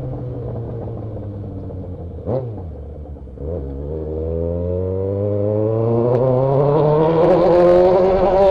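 Yamaha XJ6 inline-four motorcycle engine through a bare straight-pipe exhaust, on the move. The revs sink slowly, there is a short sharp blip about two seconds in, and then the revs climb steadily as the bike accelerates.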